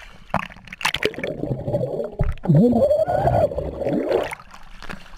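Muffled underwater sound picked up by an action camera submerged in a swimming pool: water gurgling with air bubbles, and a wavering tone that bends up and down, loudest in the second half and stopping near the end.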